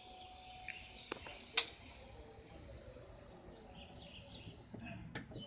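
Power liftgate of a 2010 GMC Yukon Denali rising, its motor giving a steady whine that stops with a click about a second in, followed by a sharp knock. Birds chirp faintly in the background.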